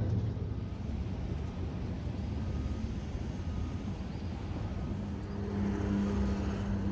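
Low rumble of motor-vehicle traffic, with a steady engine hum coming in about five seconds in.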